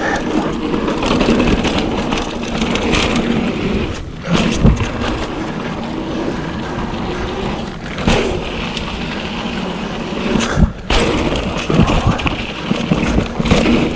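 Trek Fuel EX 5 mountain bike being ridden along a dirt trail: steady tyre and wind rush with a few sharp knocks and rattles as the bike goes over bumps.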